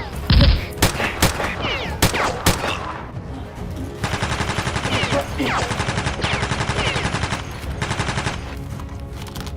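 Gunfire sound effects: a few single shots, then rapid automatic fire from about four seconds in, with background music.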